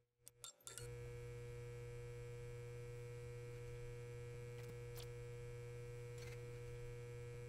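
Neon sign hum sound effect: a few crackling clicks as the sign flickers on in the first second, then a steady electrical hum with occasional single clicks.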